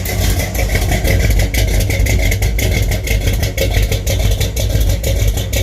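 1975 Chevy K5 Blazer's engine idling steadily through its freshly welded 3-inch aluminized exhaust with stainless tips. The new exhaust sounds good to the owner, a little different.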